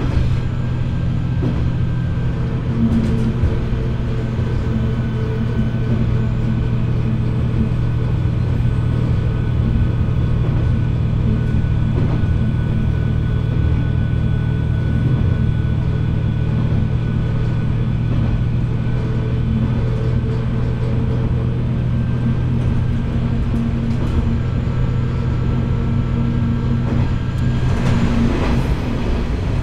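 Diesel railcar's engine running steadily under power, a low hum with a few steady whining tones above it. The engine note eases off near the end.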